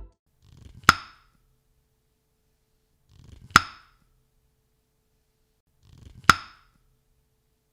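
Three identical sharp knocks, evenly spaced about two and a half seconds apart. Each is led in by a faint brief rustle and rings shortly after the hit.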